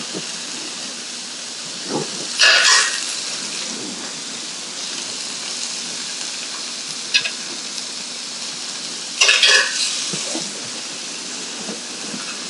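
Tofu sizzling steadily in a frying pan with oil and lime juice, with two short louder bursts about seven seconds apart.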